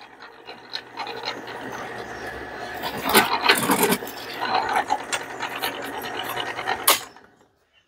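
Drill press running with a step drill bit cutting through a thin metal plate: a steady motor hum under the rasp of the bit chewing and countersinking the hole. It cuts off sharply about seven seconds in.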